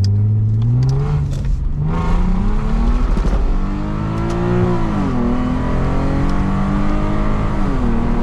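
Lexus IS250's ECU-tuned V6 engine accelerating hard: the note climbs for about two seconds, breaks at an upshift, climbs again, drops at another shift about five seconds in, then holds steady with a brief dip near the end.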